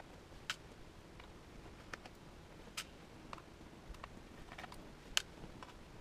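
Faint, irregular small clicks and ticks, about a dozen, the sharpest a little after five seconds in: a small screwdriver working the tiny screws of a MacBook Pro's aluminium bottom case.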